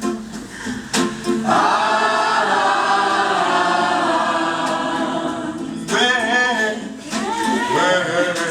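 A group of voices sings together a cappella, holding one long chord from about a second and a half in. Near the end a voice bends and wavers through a sung line.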